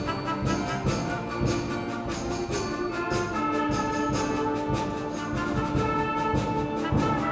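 High school concert band playing, brass to the fore, in long held chords.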